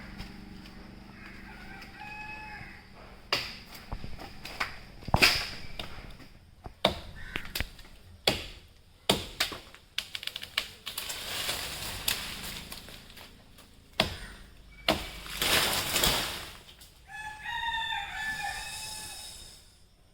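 A rooster crowing loudly near the end, with a fainter crow about two seconds in. Before it come a run of sharp, irregular knocks and bursts of rustling.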